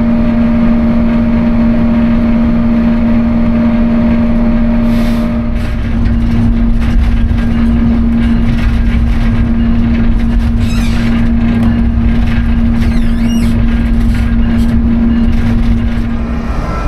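A diesel-electric locomotive running along the track, with a steady engine hum over a dense rumble of wheels on rail. Brief high metallic squeals come about eleven and thirteen seconds in, and the hum drops away just before the end.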